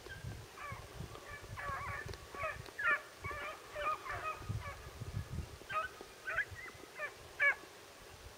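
Hunting dog baying while running a rabbit: a string of short, pitch-bending yelps and bays, irregularly spaced and sometimes coming several to a second.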